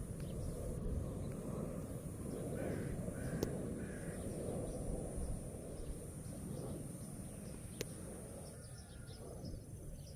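Crows cawing: three short harsh calls a few seconds in, over a steady low rumbling noise.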